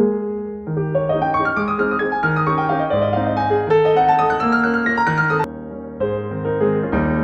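Background piano music: a stream of notes played one after another, dipping briefly about five seconds in.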